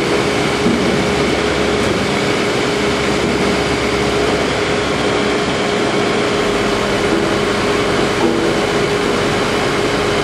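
Heavy machinery running steadily: a loud, even engine-like drone with a constant whine, and a shift in its deep low rumble about six seconds in.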